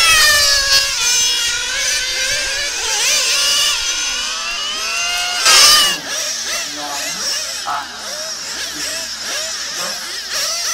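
Several 1:8-scale nitro on-road RC cars racing, their small glow engines screaming at high revs, pitch rising and falling over and over as they accelerate and brake through the corners. The sound is loudest about five and a half seconds in, then drops a little after a sudden change.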